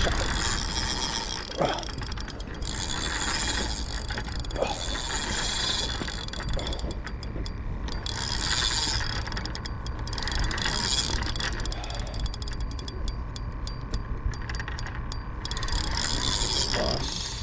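A fishing reel being cranked to bring in a hooked fish: its gears run with a fast, fine ticking whir that swells and eases every couple of seconds as the handle turns.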